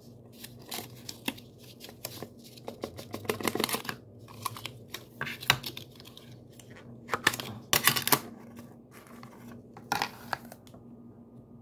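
Clear plastic shrink wrap crinkling and tearing as it is peeled off a putty tin and handled, in irregular bursts, loudest a little over halfway through.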